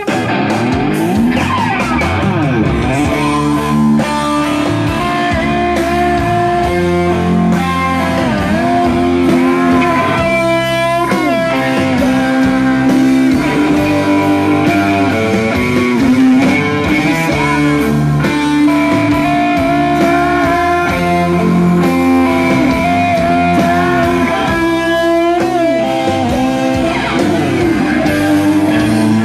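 Electric guitar playing a melodic line over lower sustained notes, with notes bent and slid up and down and held with vibrato.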